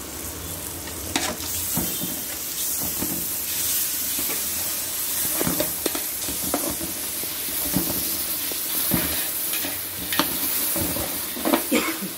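Onion-tomato masala sizzling in hot oil in a large metal pot as yogurt is stirred into it with a metal ladle. The ladle scrapes and clinks against the pot at irregular intervals, most often near the end.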